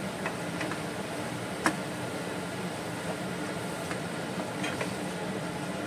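Spoon stirring fenugreek leaves and potatoes in a cooking pan: a few light scrapes and clicks, with one sharper knock against the pan about one and a half seconds in, over a steady background hum.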